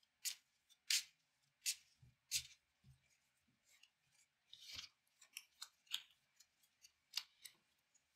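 Yu-Gi-Oh! cards being shuffled: a run of sharp, rasping strokes about two-thirds of a second apart for the first couple of seconds, then lighter, irregular clicks and slides of cards.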